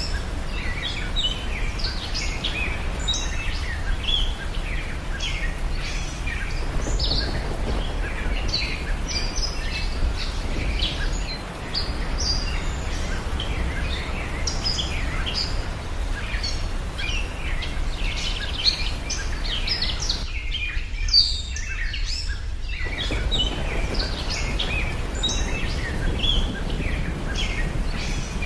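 Many small birds chirping and twittering over a steady background of outdoor noise with a low rumble, as in a nature ambience track. About two-thirds of the way through, the background noise cuts out for a couple of seconds while the chirping carries on.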